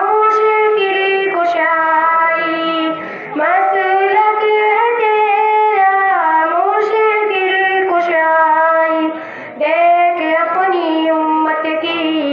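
Two girls singing a naat in Urdu through microphones, a slow melody of long held notes with gliding ornaments and no instruments. The singing breaks off briefly twice, about three seconds in and again near the ten-second mark.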